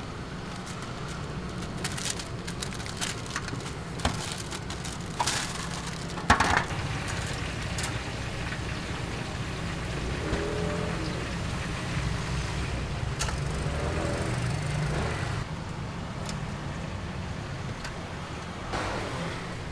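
Deep-frying station at work: a steady low hum, with metal tongs, skimmer and wire strainer clinking and clattering and hot oil sizzling in the wok. The sharpest clatter comes a few seconds in; the sizzle fills out later.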